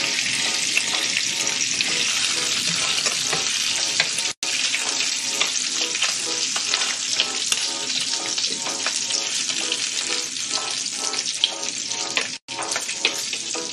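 Bacon sizzling in a frying pan, a steady, dense sizzle that cuts out for an instant about four seconds in and again near the end.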